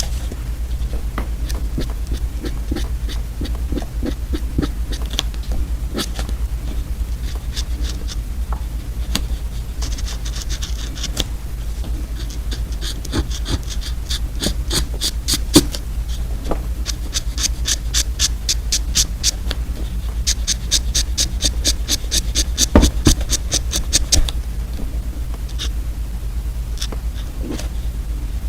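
Close-miked ASMR eating sounds: crunchy candy being chewed, with runs of rapid, crisp crackling and clicking over a steady low hum.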